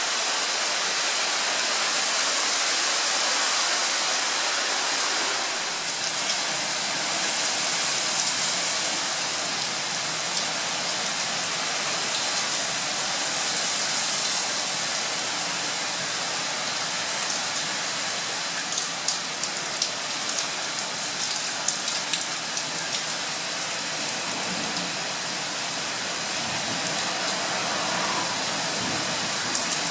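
Heavy rain falling in a steady rushing hiss. In the second half, sharp ticks of single drops hit surfaces close by.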